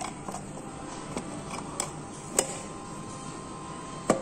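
Light clicks and knocks of a microscope's sheet-metal rear panel being handled and fitted against the base housing. The two sharpest knocks come about halfway through and near the end.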